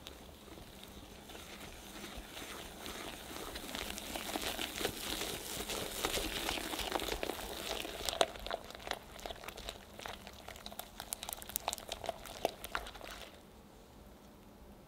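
A silicone-coated whisk working flour into egg yolk batter in a glass bowl. Soft rasping strokes grow louder as the flour is worked in. In the last few seconds the thickening batter gives many sharp wet clicks, and the stirring stops shortly before the end.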